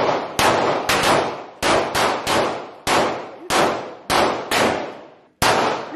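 Handgun fired shot after shot, about a dozen shots at uneven gaps of roughly half a second with a short pause before the last, each ringing off in the echo of an indoor shooting range.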